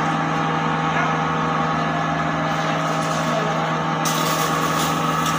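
Maize-crushing mill driven by a 10 hp electric motor, running steadily with a continuous hum and whine. About four seconds in, a harsh hissing rattle joins as maize is poured into the hopper and the grain starts being crushed.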